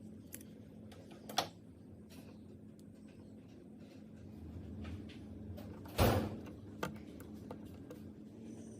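Faint handling noise: a few light clicks and one louder knock about six seconds in, over a low steady hum, typical of a padlock being handled.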